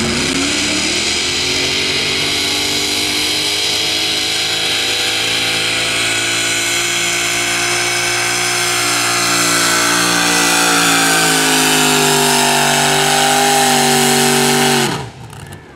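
A 2WD modified pulling truck's engine runs at full throttle while hauling a weight-transfer sled. Its revs climb as it launches, then hold high and steady with slight rises and dips. The sound drops away suddenly near the end.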